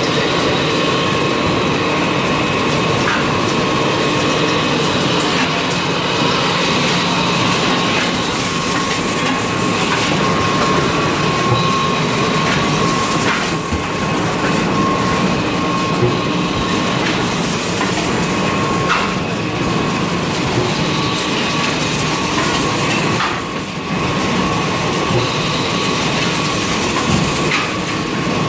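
Automatic kitchen towel roll packing machine and its conveyors running: a steady mechanical din with a constant whine and irregular clacks and knocks.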